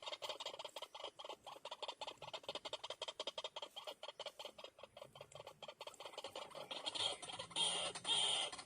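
White-breasted waterhen (ruak-ruak) calling in a rapid run of short repeated notes. The calls turn louder and longer in the last two seconds.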